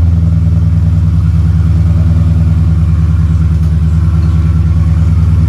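Straight-piped Dodge Charger Daytona 392's 6.4-litre HEMI V8 idling loud and steady, with no revs.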